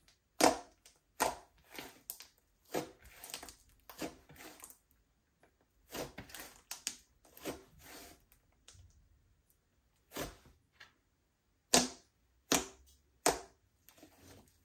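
Slime being squished and pressed by hand, giving off sharp, irregular pops and crackles of trapped air, with a short lull past the middle.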